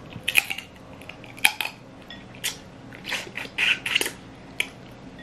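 Close-up eating sounds of a snow crab leg: biting, sucking and cracking at the shell in a string of short, irregular bursts.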